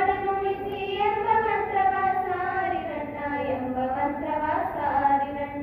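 Schoolgirls singing a song together, in long held notes.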